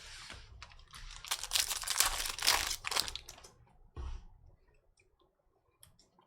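Crinkling and tearing of a trading-card pack's foil wrapper being ripped open, with dense crackling for a couple of seconds, then a single knock about four seconds in and a few faint clicks.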